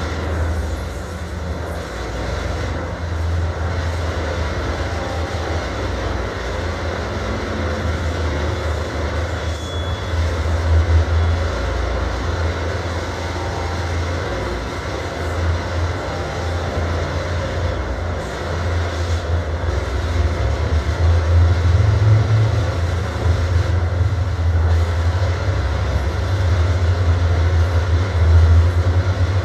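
Deep, loud rumbling drone from a psychoacoustic sound installation played over loudspeakers, a heavy low rumble that swells and eases under a fainter hiss. It grows slightly louder in the second half.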